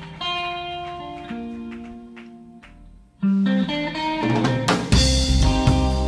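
Instrumental intro music: plucked guitar notes ringing out and fading, then a fuller phrase with a drum kit beat coming in about five seconds in.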